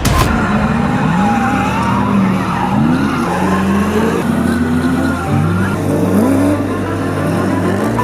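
Drift cars at high revs, the engine note climbing in a rising sweep again and again as the throttle is worked, with tyres squealing through the slides.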